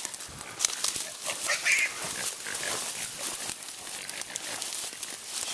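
Brush and branches crackling and snapping as someone pushes through thick undergrowth, with a short animal cry about a second and a half in, from the hog bay.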